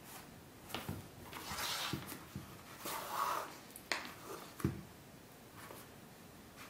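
Hand-stitching leather: thread drawn through the stitch holes with two short rustling swishes, and the leather pieces shifting with a few light clicks and knocks, the heaviest about four and a half seconds in.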